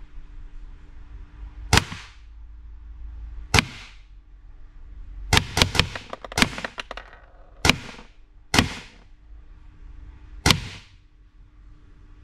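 Airsoft shots at a paper bullseye target, each a sharp snap with a short ringing tail. There are two single shots, then a quick string of about six, then three more single shots.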